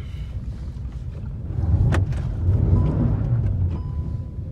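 Car driving, heard from inside the cabin: a steady low road and engine rumble that grows louder partway through, with a sharp click about two seconds in.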